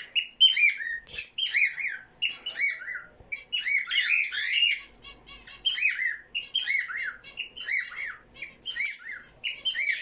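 Small pet parrots calling out: a continuous run of short, arching chirps, several a second, broken by brief lulls.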